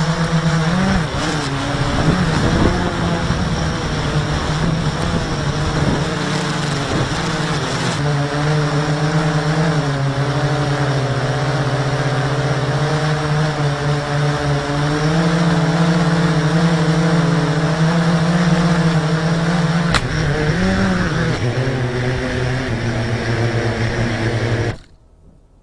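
A drone's electric motors and propellers whir close to the microphone, their pitch wavering up and down as the drone fights a gusty wind that buffets the mic. Near the end the motors cut off abruptly as the drone sets down in grass.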